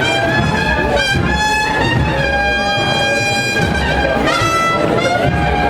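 Cornet and drum band playing a processional march: cornets hold long, bright notes while drums beat underneath in a steady pulse.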